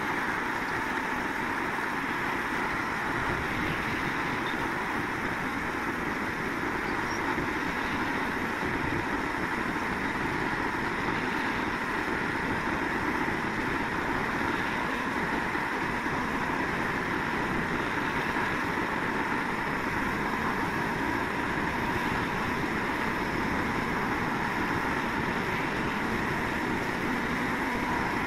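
Portable electric tyre inflator running steadily as it pumps up a flat tubeless car tyre, the pressure climbing toward the 32 PSI at which it is set to shut itself off.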